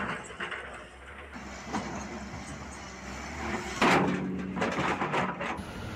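Heavy machinery at work: truck and excavator engines running over a steady low hum, with a loud burst of noise about four seconds in.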